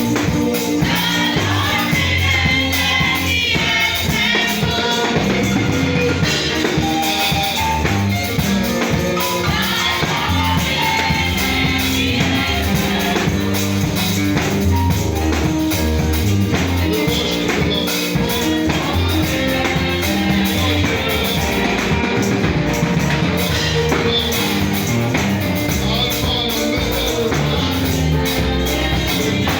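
Loud gospel praise music with a steady beat, bass and singing voices.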